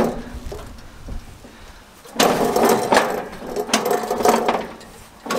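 Metal parts of a tile saw's steel frame and sliding table rattling and scraping as they are handled. About two seconds in, a louder stretch of clattering and scraping lasts a couple of seconds.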